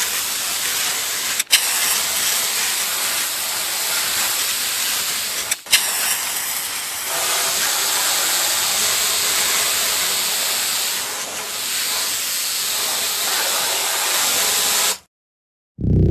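Paint spray gun hissing steadily as it sprays a clear peelable coating onto a car's paint, with two very short breaks. It cuts off abruptly near the end.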